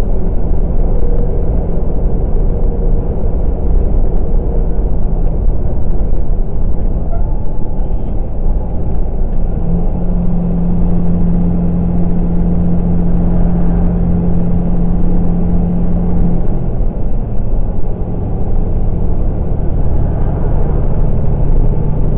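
Steady engine and road rumble inside a semi-truck cab at highway speed. About ten seconds in, a horn comes on and holds one steady note for about six and a half seconds, then cuts off, as a vehicle cuts in front of the truck.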